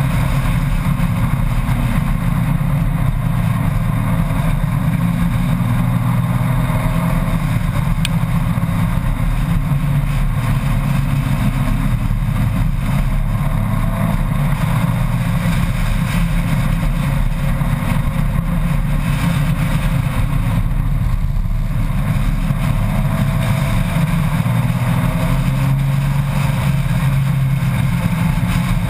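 Honda Gold Wing motorcycle running steadily at road speed, its engine note shifting a little now and then, under a constant rush of wind and road noise.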